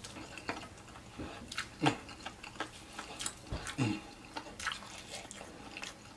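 Wet mouth sounds of a man eating fried chicken: chewing and lip smacks as irregular short clicks, with two louder short low sounds about two and four seconds in.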